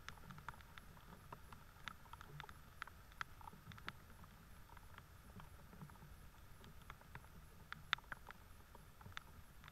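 Rain dripping in a forest at night: irregular sharp ticks of drops landing, a few a second, with one louder tap about eight seconds in, over a faint steady high tone from the old trail camera's recording.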